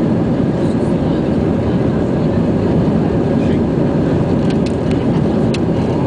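Airbus A320 cabin noise during the climb after takeoff: the jet engines and airflow make a steady low roar. A few faint ticks come about four to five seconds in.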